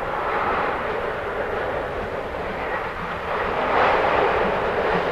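Steam train hauled by the C56 44 locomotive approaching through a railway tunnel, its rumble echoing from the portal and swelling about four seconds in.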